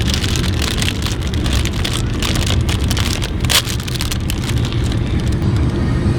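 Rain pattering steadily on a moving car, many scattered drop hits over the low rumble of road noise.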